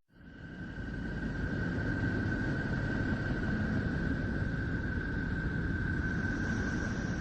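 Sonified space recording of Neptune: electromagnetic signals picked up by a NASA spacecraft and converted to audio. It is a steady, low, rushing noise with a thin, steady high tone over it, fading in over about the first second.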